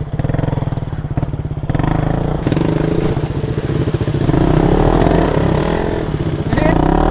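Motorcycle engine running under way, its throttle opening and closing so the revs rise and fall, with a fast pulsing exhaust beat.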